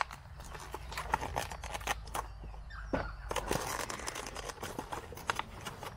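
Plastic bubble-wrap packaging of a brake caliper seal kit crinkling and crackling as it is cut and pulled open by hand, a run of irregular sharp clicks and rustles.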